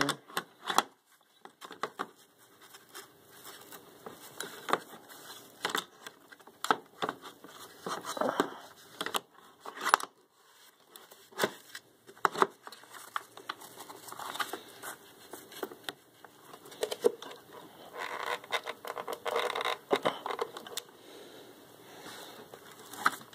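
Irregular plastic clicks, knocks and scrapes of an upright vacuum cleaner's parts being handled as a brush roll is swapped into its nozzle; the motor is not running.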